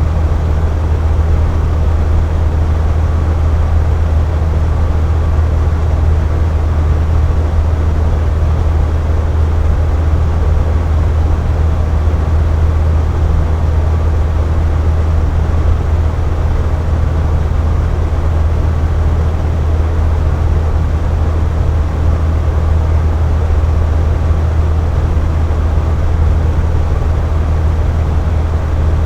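Box fan running steadily: a constant low hum with an even airy rush above it.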